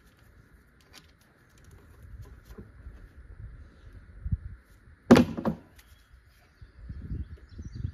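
Handling noises of a rubber coolant hose being worked onto its fitting in an engine bay: soft knocks and rubbing, with one loud thunk about five seconds in.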